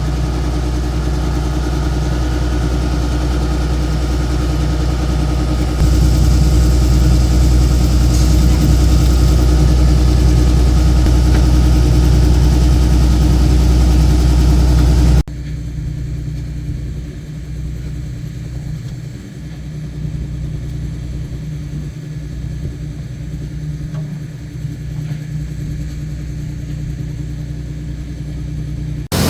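Corn harvesting machine's engine running steadily at a constant pitch. It gets louder about six seconds in, then cuts abruptly about halfway through to a quieter, lower drone of machinery.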